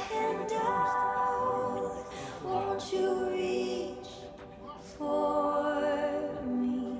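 Background song with sung vocals holding long notes, dropping away briefly about four seconds in.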